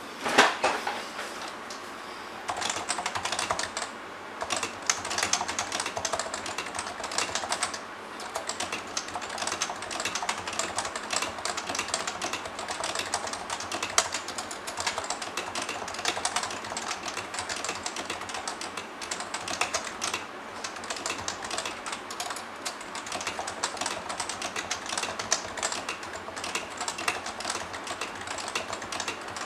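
Continuous fast typing on a CM Storm NovaTouch TKL keyboard with Topre switches, O-rings fitted under the keycaps. A single louder knock comes just after the start, and the steady run of keystrokes begins about two and a half seconds in.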